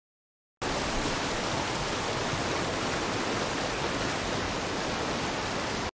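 Shallow mountain stream rushing over rocks: a steady water rush that starts abruptly about half a second in and cuts off just before the end.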